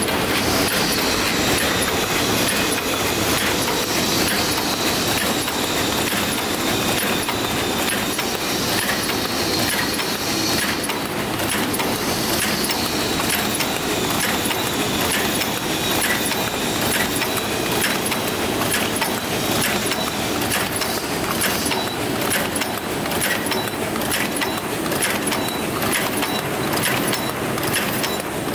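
Dakiou-N paper cup forming machine running: a steady mechanical clatter with rapid, regular clicking, and a faint high whine that slides in pitch twice.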